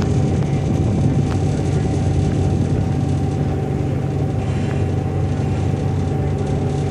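Ferry's engine running steadily on board: an even low drone with a constant hum above it, unchanging throughout.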